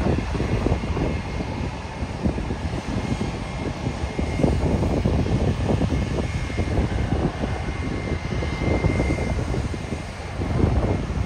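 Airbus A320 jet airliner moving along the runway, its jet engines giving a deep crackling rumble with a faint steady whine above it.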